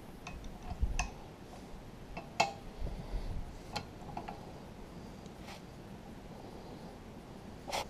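Scattered sharp clicks and light taps of a screwdriver and pliers against the piston and aluminium crankcase of a small two-stroke engine, about seven in all, over a low steady hum.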